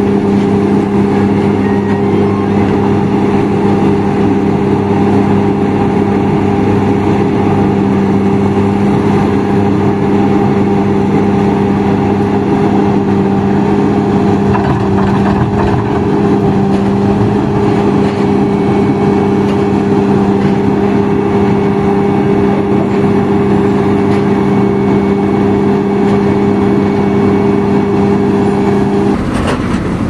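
Heavy diesel road-building machinery running at a constant speed: a loud, even engine hum. The hum breaks off about a second before the end, and a different rumble follows.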